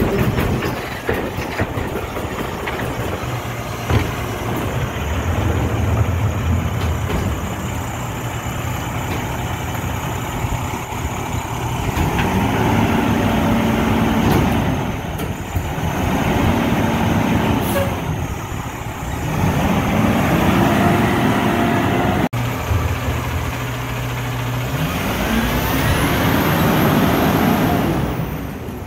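Rear-load garbage truck's diesel engine running as the truck drives off, its pitch rising and falling several times as it pulls away.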